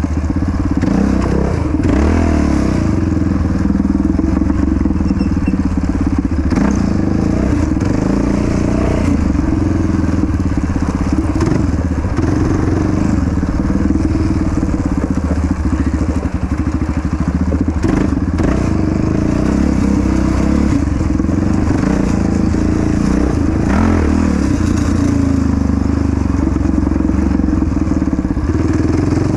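Yamaha Raptor 700 quad's single-cylinder four-stroke engine running hard, its pitch rising and falling as the throttle opens and closes, with occasional knocks.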